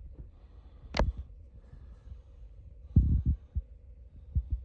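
A sharp click about a second in, then a cluster of dull low thumps about three seconds in and a few lighter thumps near the end, over a steady low hum.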